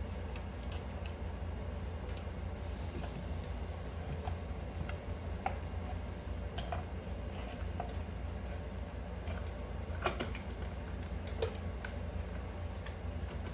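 Scattered light metallic clicks and taps as bolts and a cover are handled and fitted on a small ATV engine, over a steady low background hum.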